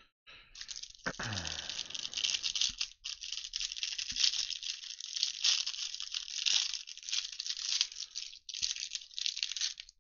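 Plastic trading-card pack wrapper being torn open and crinkled in the hands, a dense uneven crackling with short pauses.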